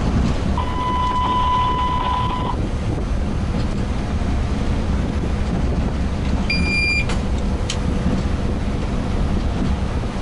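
ChS200 electric locomotive cab running, a steady low rumble. Over it, an electronic cab beep sounds for about two seconds half a second in, and a shorter, higher beep comes a little past the middle.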